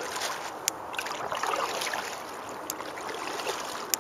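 Water splashing and trickling around a moving canoe, with three sharp clicks, the loudest near the end.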